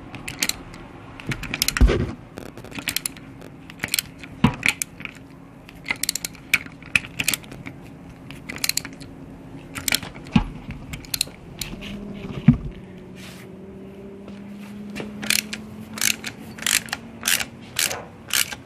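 Hand ratchet wrench clicking in quick runs as it is swung back and forth, unscrewing an exhaust manifold stud from an aluminium cylinder head by two nuts locked together on the stud. Now and then a sharper metal knock from the socket and tools.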